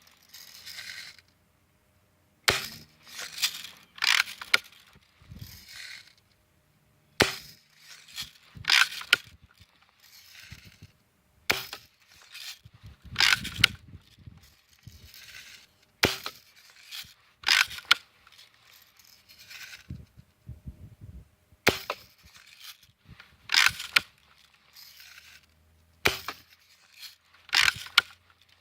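Lever-cocked spring BB rifle being cocked and fired over and over: a dozen or more sharp snaps, one every second or two, with quieter clacks of the lever between shots.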